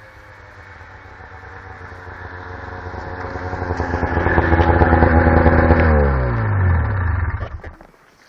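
Snowmobile engine growing louder as it approaches, passing close with a high-revving whine, then dropping sharply in pitch and fading away as it goes by.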